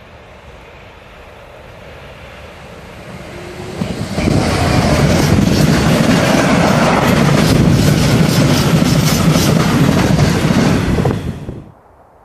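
Class 66 diesel freight locomotive approaching and passing close by, its engine growing louder until it passes about four seconds in. A rake of covered steel-carrying wagons then rumbles and clatters past on the rails, and the sound cuts off suddenly near the end.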